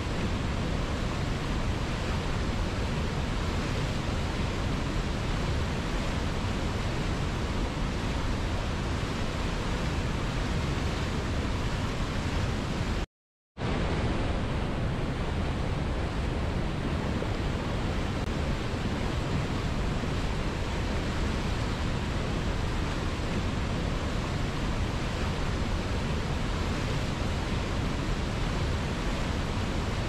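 Steady rush of a mountain river's white-water rapids and a waterfall pouring through a rocky gorge. The sound cuts out completely for about half a second near the middle, then resumes unchanged.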